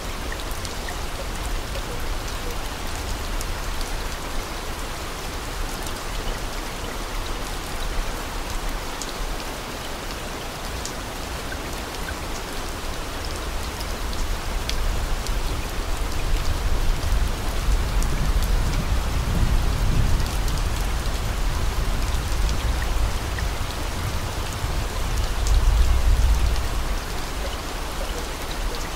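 Steady rain, a dense even hiss scattered with small drop ticks. A low rumble swells up twice, about two-thirds of the way through and again near the end.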